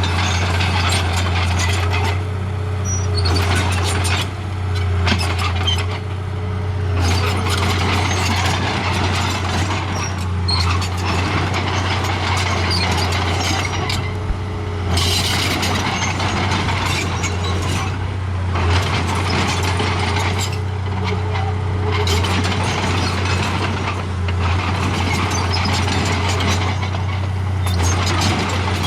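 Remote-control model bulldozer running: its motor and tracks make a steady mechanical noise that pauses briefly several times as it stops and starts, over a constant low hum.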